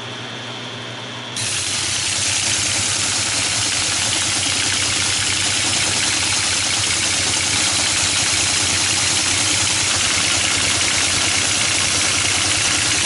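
Teletype ASR 33 printing received text at 110 baud. After a second and a half of steady hum it breaks into a loud, even, rapid clatter that runs on unbroken, with the machine printing and decoding fine.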